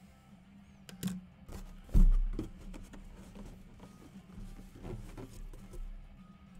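Handling noise from unboxing a Riddell Speed replica football helmet: a series of sharp clicks and knocks, with one heavy thump about two seconds in.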